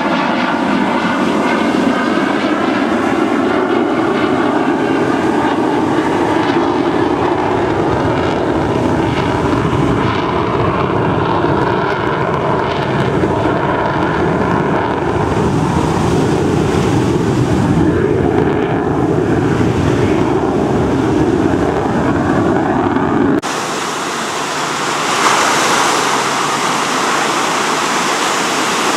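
Twin-engine F/A-18 fighter jet flying past with a loud, continuous jet roar, with a sweeping, phasing tone early on. About 23 seconds in, the sound changes abruptly to a thinner, hissier roar.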